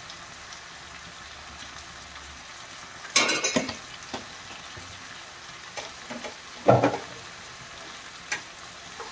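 Onions and tomatoes frying in oil in a kadhai, a steady faint sizzle. Spatula scrapes and knocks against the pans come over it, loudest about three seconds in and again near seven seconds, with a few lighter clicks between.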